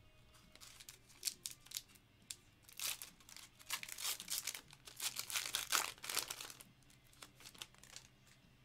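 Foil wrapper of a Panini Contenders Optic basketball card pack being torn open and crinkled by hand. It comes as a series of short, uneven rips and rustles over about six seconds, then goes quiet as the cards come out.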